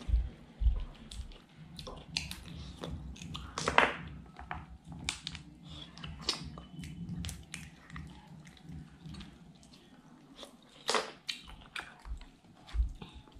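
Close-up wet chewing and mouth smacking of a person eating rice with clam curry by hand, broken by irregular sharp clicks, a few of them louder.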